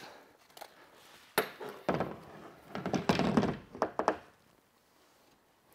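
Sharp clicks from the pack's compression-strap buckles being undone, then knocks and rustling as a bow is lifted off the pack and laid on a wooden workbench.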